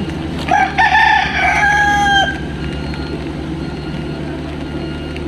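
A rooster crows once, about two seconds long, over the steady low drone of a heavy-equipment engine running.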